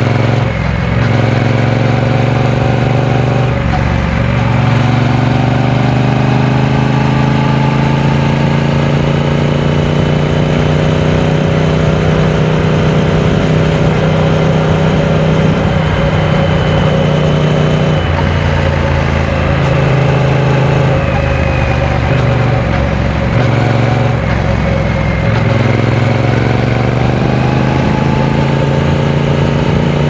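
Triumph Speed Twin 900's parallel-twin engine running under way on the road, its pitch rising and falling with the throttle, with a few short dips in the second half.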